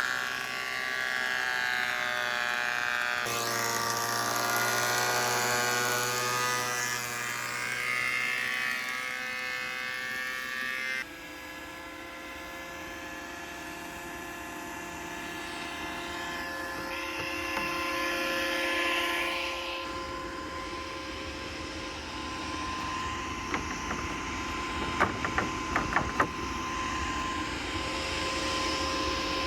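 A machine motor running at a steady pitch, its sound changing abruptly about three seconds and eleven seconds in, with a few sharp clicks near the end.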